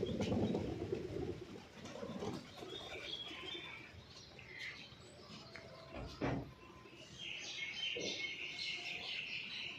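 Birds chirping, with low cooing at the start and a dense chatter of high chirps in the last few seconds. A single sharp knock about six seconds in.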